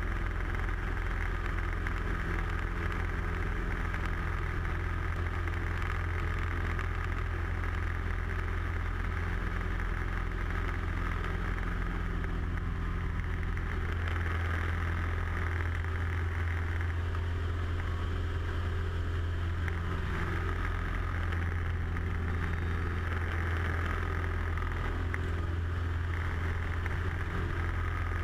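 A light aerobatic aircraft's piston engine and propeller drone steadily in flight, heard from inside the cockpit. The note swells a little around the middle as power changes during the manoeuvres.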